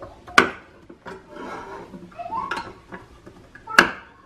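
A hand-held can opener working a can of chicken broth: a sharp metallic click about half a second in and another near the end, with scraping, grinding metal in between.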